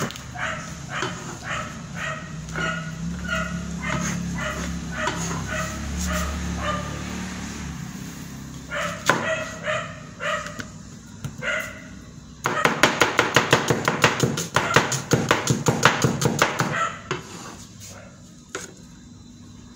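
Cleaver chopping cabbage on a cutting board: steady chops about twice a second, then a fast run of rapid chopping, about seven strikes a second, for several seconds in the second half.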